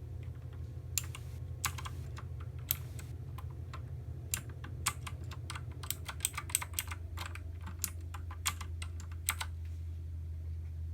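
Xenics Titan Mark 7 mechanical keyboard with clicky blue switches being typed on: irregular key clicks that start about a second in and stop near the end. A steady low hum runs underneath.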